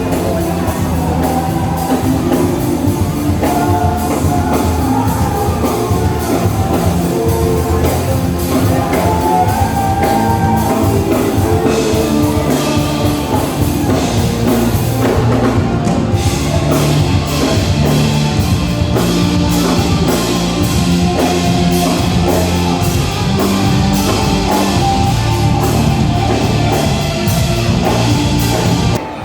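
Loud rock music with a drum kit and singing.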